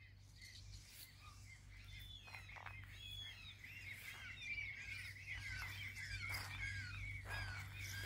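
Birds singing in a morning chorus: many short chirps that build into a fast, continuous twittering run from about three seconds in, with a few short falling calls.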